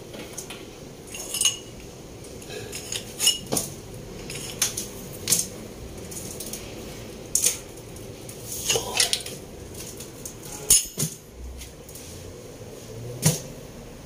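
Metal tools and engine parts clinking and knocking at irregular intervals, with about a dozen sharp clinks and the loudest knock near the end, while engine accessories are fitted during assembly.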